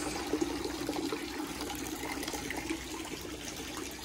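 Water running and splashing steadily as a poultry house's drinking-water line is flushed, clearing out stale water ahead of new chicks.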